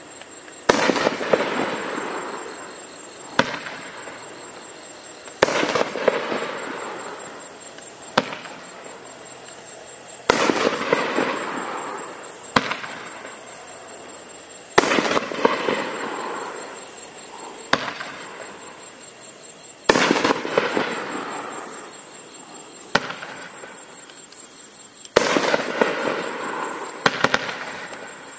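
Raccoon Fireworks 'Uncle Sam' 9-shot 3-inch nishiki cake firing one shot at a time. Each sharp launch thump is followed about two seconds later by a loud aerial break, whose sound fades over a couple of seconds. Six breaks come in turn, about five seconds apart.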